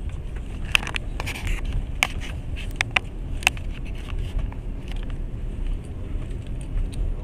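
Passenger train carriage running along the track: a steady low rumble with irregular clicks and rattles, most of them in the first few seconds.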